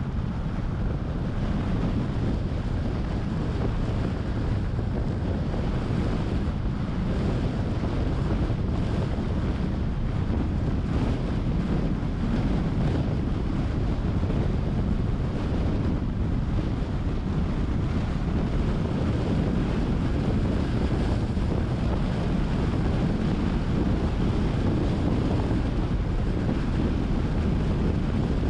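Steady low rumble of wind on the microphone of a camera on a moving car, mixed with road noise. It holds an even level throughout.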